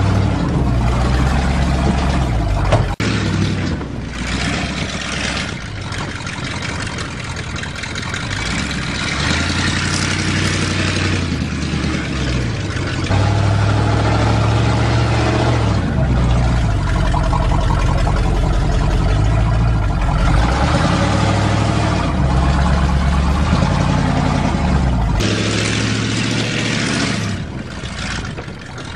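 1977 GMC truck's engine running under load, its revs rising and falling several times, heard from inside the cab. One sharp click about three seconds in.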